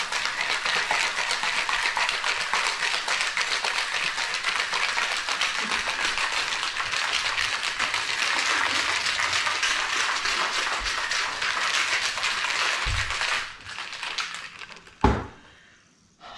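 Ice cubes rattling fast and hard inside a closed cocktail shaker as it is shaken, for about thirteen seconds before it stops. A single sharp knock follows a second or two later.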